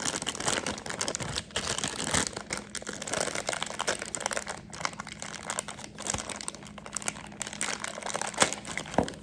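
Plastic blind bag holding a mini figure being crinkled and opened by hand, a dense, continuous crackle with a couple of sharper clicks near the end.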